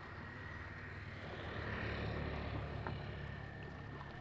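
A low engine hum that grows louder about halfway through and then eases off, over outdoor background noise.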